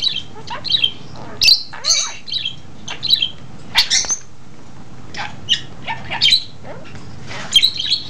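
Budgerigar chattering: a quick run of short, sharp chirps and squawks, one or two a second, some sliding quickly in pitch.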